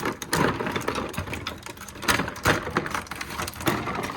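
Screwdrivers and their plastic packaging being handled: a busy run of irregular clicks, light clatter and rustling.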